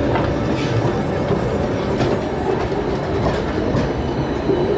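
A city tram rolling past close by: a steady rumble with its wheels clicking irregularly over the track, and a thin, high wheel squeal beginning near the end.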